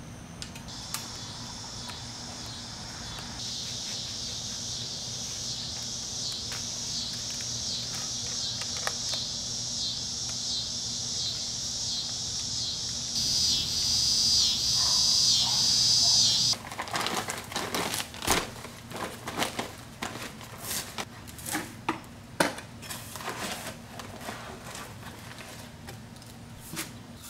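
Insects buzzing in a steady high pulsing drone that cuts off suddenly about 16 seconds in. Then crackling and rustling with sharp clicks, as of a paper sack of mortar mix being opened and handled.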